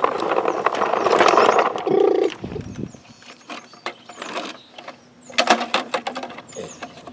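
Plastic rattling and clicking of a toy skip-loader truck's lifting arms, chains and skip container as the container is swung back down onto the truck bed. The sound is loud and busy for the first couple of seconds, then quieter, with a quick run of sharp clicks about five to six seconds in.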